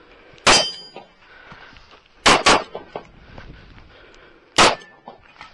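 Four 9mm shots from a Sig Sauer P365 pistol: a single shot about half a second in, a quick pair about two seconds later, and a last shot a couple of seconds after that.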